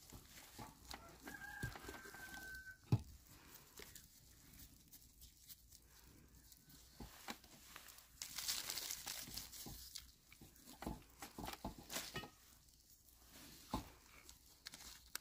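A rooster crows once, faintly, a held call about a second and a half in. Scattered knocks and rustling handling sounds surround it, the sharpest a single knock about three seconds in, with a rustling hiss around eight to ten seconds in.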